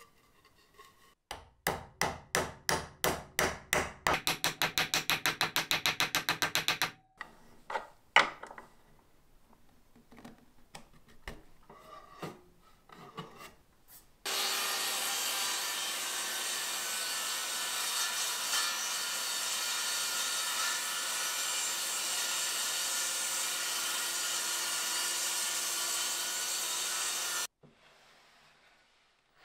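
Wood being worked by hand in a run of rhythmic rubbing strokes, roughly two a second and speeding up, then a few scattered knocks. After that a power tool runs steadily for about thirteen seconds and cuts off suddenly.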